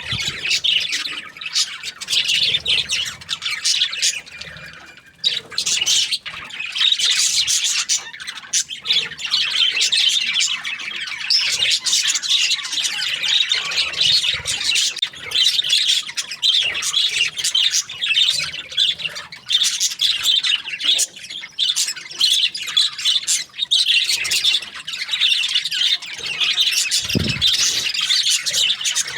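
A flock of budgerigars chattering and squawking continuously in dense, rapid chirps, with a brief low thump near the end.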